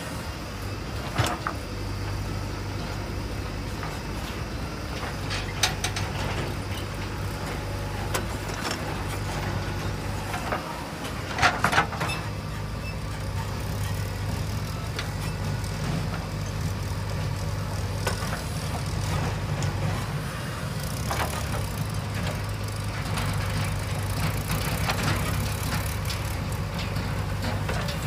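JCB 3DX backhoe loader's diesel engine running steadily under load while the backhoe digs and loads soil. A few sharp knocks break through, the loudest a short cluster a little before halfway.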